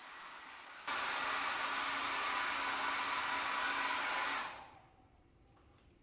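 Handheld hair dryer blowing on a low setting, switched up to high about a second in with a jump in loudness, then switched off a little over four seconds in and winding down over half a second. It is drying fresh paint on a drywall patch.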